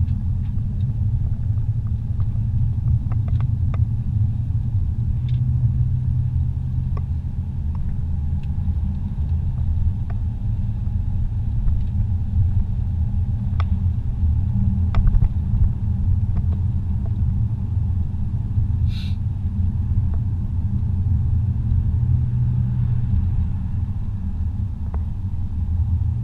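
Steady low rumble of a car driving on a paved highway, heard from inside the cabin, with a few faint ticks and a brief high chirp about three-quarters of the way through.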